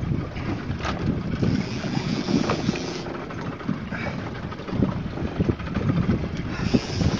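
Wind buffeting the microphone on a small open boat at sea, a gusty low rumble with a few light knocks.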